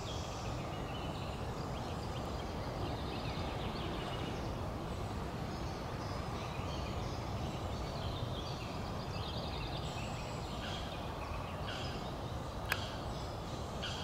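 Wetland ambience: small birds singing in the background, short chirps and trills throughout, over a steady low noise. One sharp click near the end.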